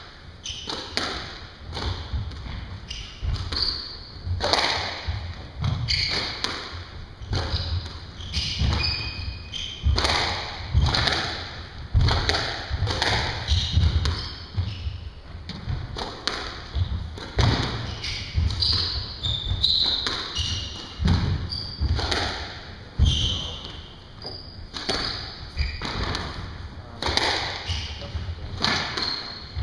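A squash rally: the ball is struck by rackets and smacks off the court walls about once a second, with footsteps thudding and shoes squeaking on the wooden floor throughout.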